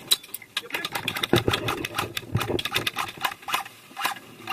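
Airsoft guns firing rapid strings of shots, a fast clatter of sharp clicks about a second in, thinning to a few shots a second toward the end.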